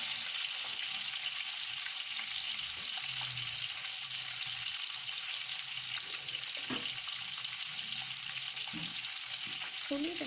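Sliced onions frying in hot oil in a large pot: a steady sizzle, with a few faint taps of the spoon as they are stirred and sautéed.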